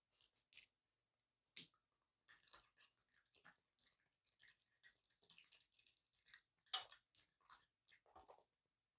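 Raccoon chewing grapes: irregular soft wet smacks and squishing clicks, with one sharper, louder click about two-thirds of the way through. It picks out the grape flesh and leaves the seeds and skins.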